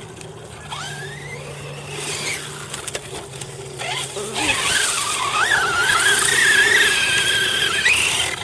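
An RC car's motor whining as it drives. The whine rises in pitch about a second in and fades, then from about halfway comes a longer, wavering whine that climbs and holds before cutting off near the end.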